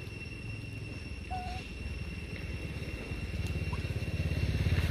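Motorcycle engine running nearby, getting steadily louder toward the end as it approaches.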